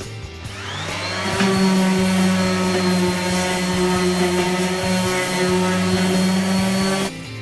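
A small electric motor spins up over about a second, then runs at a steady pitch with a low hum and a thin high whine. It cuts off abruptly near the end.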